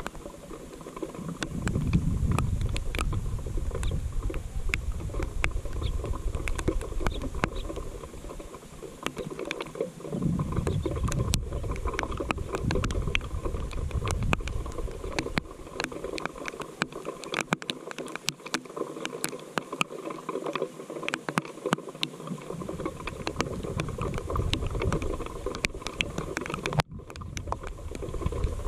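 Rain falling, with many scattered drops ticking sharply close by and a low rumble that swells and fades several times.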